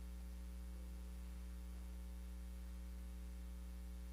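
Steady low electrical mains hum with its higher overtones, unbroken and unchanging.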